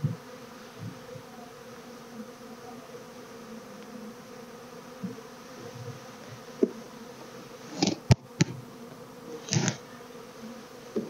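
Honeybees from an open hive buzzing in a steady hum, with a few sharp knocks and clicks about two-thirds of the way through.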